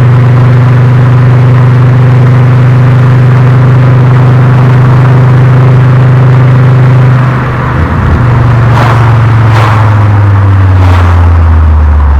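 Volkswagen Golf Mk4 VR5's five-cylinder engine heard at the exhaust while driving: a loud, steady drone at constant engine speed. After a short dip about seven seconds in, the pitch falls steadily as the engine slows, with three brief sharp noises along the way.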